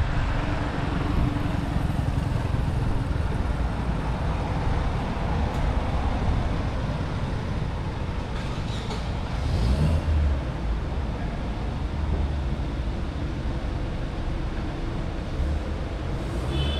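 Road traffic: a steady low rumble of vehicles, with a brief high tone near the end.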